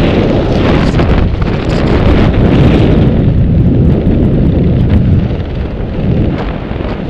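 Loud wind buffeting a microphone during a parachute jump: a dense rushing noise, heaviest in the low end, that thins out a little in the higher range after about three seconds.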